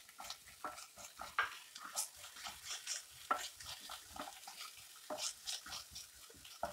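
A spatula stirring and scraping in a frying pan as chopped onion, crushed ginger, garlic and green chillies sauté in a little oil, with a light sizzle under irregular scrapes and taps.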